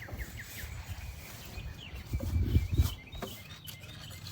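Small birds chirping, with a quick run of falling chirps at the start and a few more later. About two seconds in there are low rumbling bumps, the loudest sound.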